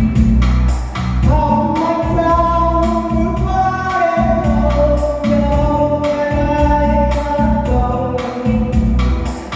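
Vietnamese song with a steady beat: after a short instrumental bar, a singer's voice comes in about a second in and carries the melody over the backing band.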